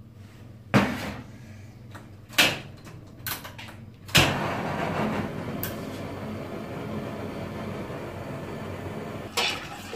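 A few clinks of kitchenware against a large steel pot, then about four seconds in a sharp click and a steady rushing from the gas stove burner as it is lit under the pot of sugar syrup. Clatter near the end.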